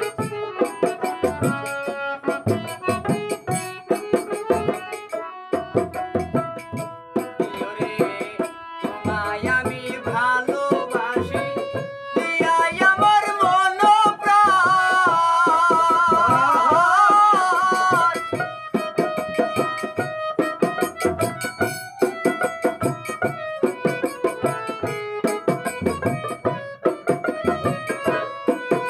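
Bengali folk song accompaniment: a harmonium plays the melody over a barrel-shaped hand drum beating a steady rhythm. About twelve seconds in, a male voice sings a long, wavering held line for around six seconds, and then the harmonium and drum carry on alone.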